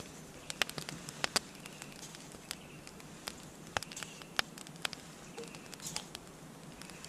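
Small wood fire crackling in a twig-burning wood-gas stove: irregular sharp pops and snaps, a dozen or more scattered unevenly.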